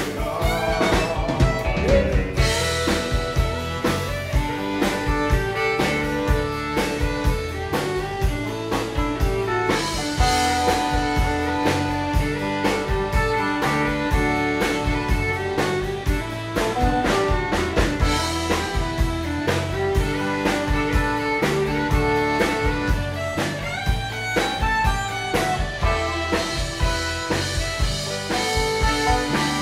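Live country band playing with guitars, bass and a steady drum-kit beat, in an instrumental stretch without singing.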